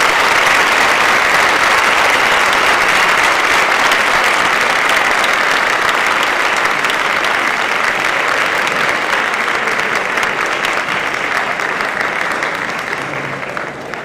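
Audience applauding steadily, a dense clapping that eases off near the end.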